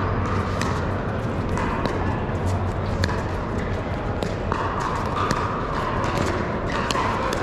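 Pickleball paddles striking hard plastic balls: sharp pops coming several times a second from many courts at once, over a steady murmur of a large hall.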